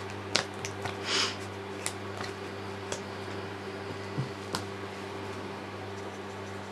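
Steady low hum with a few light clicks and taps from water brush pens being handled, and a brief rustle about a second in.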